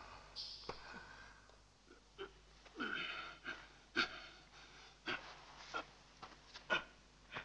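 A man's heavy, wheezing breaths and gasps, with a few sharp clicks in between.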